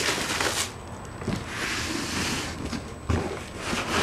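Monitor box packaging rustling and scraping as it is handled, with a few dull knocks.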